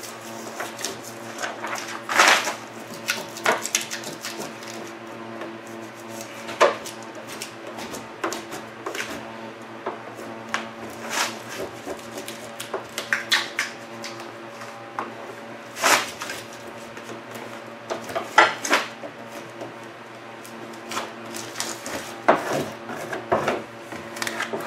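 Scattered crackles, rustles and sharp clicks of a large vinyl decal sheet being handled and pressed onto a car's steel door, over a steady low hum.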